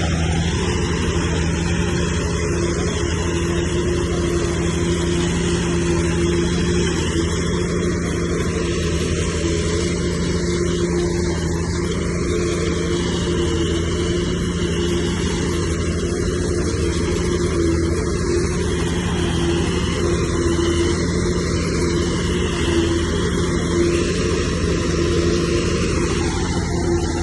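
Heavy diesel engine of earthmoving machinery running at a steady speed, an even drone with no change in pitch.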